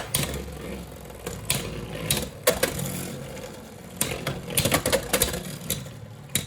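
Beyblade X spinning tops running in a plastic stadium, clattering and clicking as they collide again and again.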